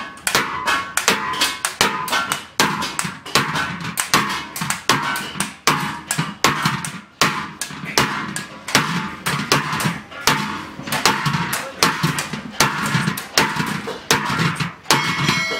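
Hand hammer beating a large metal pan into shape, in quick repeated blows of about two to three strikes a second.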